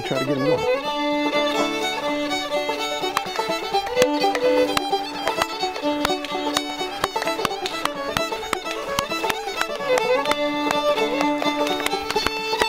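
Background instrumental music with a fiddle melody of held notes over quick, sharply attacked accompanying notes.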